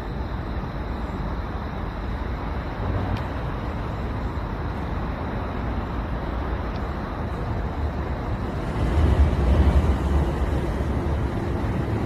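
Steady low rumble of wind buffeting the microphone, with a stronger gust about nine seconds in.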